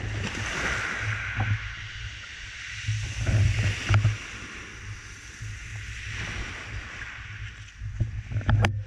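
Surf washing up over a black pebble beach and draining back, the water hissing through the pebbles, with a low rumble of wind on the microphone. A few sharp clicks near the end.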